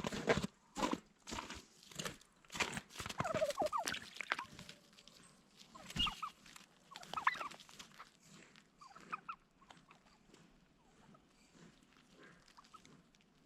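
Domestic turkeys gobbling and calling, a rapid run of calls in the first few seconds, then scattered calls that thin out toward the end.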